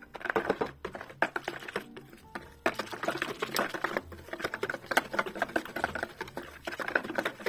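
A wire whisk beating flour into a yeast and milk batter in a bowl: a fast, continuous clatter of the wires against the bowl, with a brief pause about two seconds in.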